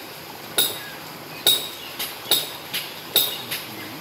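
A series of sharp, short metallic clinks, each with a brief high ring, coming at uneven intervals of roughly half a second to a second, over a faint steady hiss.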